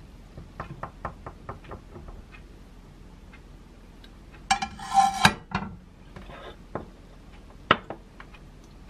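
A spoon clinking against a drinking glass as juice is stirred, a quick run of light taps in the first two seconds. About four and a half seconds in, a louder clatter of dishes on the countertop with a brief ring, followed by a few lighter knocks and one sharp knock near the end.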